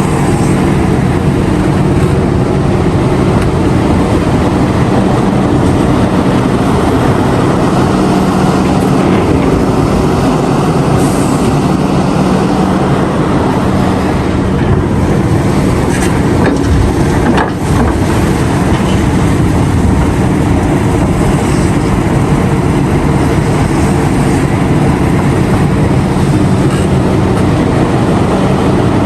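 Heavy diesel engines of mining excavators and haul trucks running steadily with a deep hum, with a brief knock about two-thirds of the way through.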